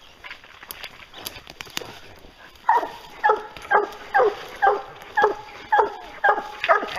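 Hunting hound barking over and over, about two barks a second, each bark dropping in pitch; the barking starts about three seconds in. Before it there is faint rustling and snapping of brush.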